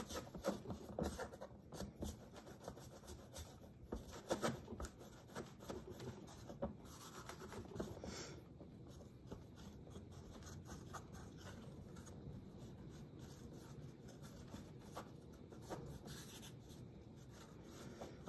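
Hands rolling a coil of clay back and forth on a board: faint, soft rubbing with light taps, busier in the first few seconds.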